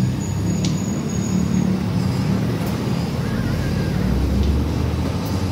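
Gas cutting torch flame burning with a steady low rush as it cuts inside a motorcycle muffler's outlet pipe where it joins the first baffle. The rumble deepens about three seconds in.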